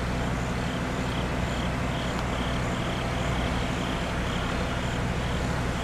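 Armored SWAT truck's engine idling steadily as a low, even hum, with a faint high pulsing about twice a second over it.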